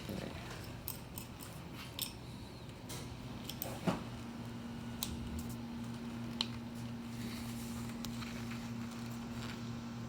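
Scattered light clicks and clinks of a tool and small metal parts being handled, one sharper knock about four seconds in, over a steady low hum; a second, higher steady hum starts at about the same moment.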